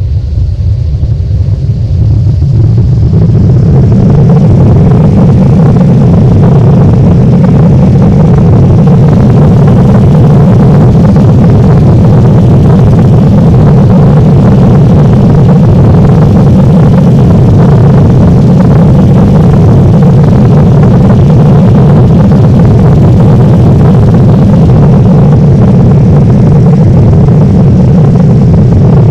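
Boeing 787 airliner landing: a loud, steady rumble that builds over the first few seconds and then holds.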